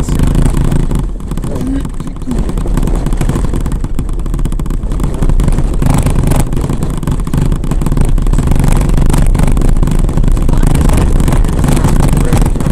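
Vehicle driving over a corrugated dirt track under a layer of sand: a loud, steady rumble with constant rattling from the corrugations, easing briefly about a second in.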